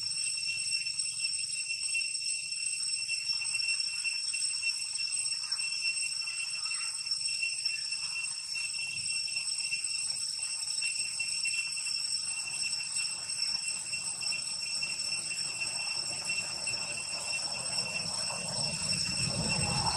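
A steady high-pitched whine holding one pitch with fainter higher overtones, unbroken throughout, over a soft low noise that swells near the end.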